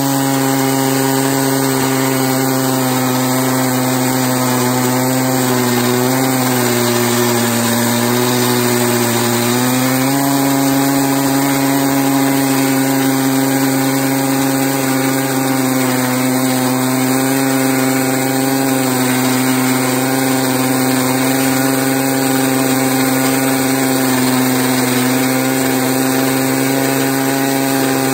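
Stihl MS880 two-stroke chainsaw in an Alaskan chainsaw mill, running steadily under load while ripping a slab from a beech log. Its engine note sags a little about six seconds in and picks back up about ten seconds in.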